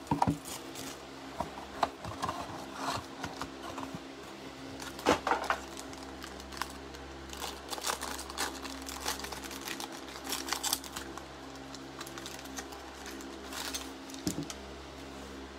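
Trading cards in plastic holders and sleeves being handled on a tabletop: scattered clicks, taps and rustles of hard plastic, over a faint steady hum.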